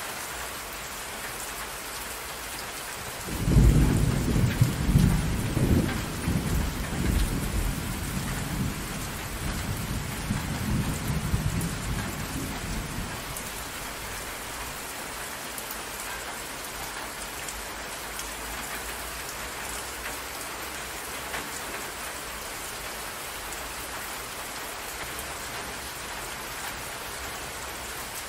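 Steady rain with a roll of thunder that breaks out suddenly a few seconds in, loudest at first, then rumbles and fades away over about ten seconds, leaving only the rain.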